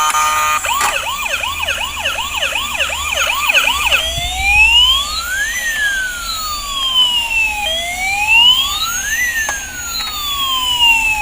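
Toy police car's electronic siren. It runs a fast yelp for about three seconds, then switches to a slow wail that rises and falls twice.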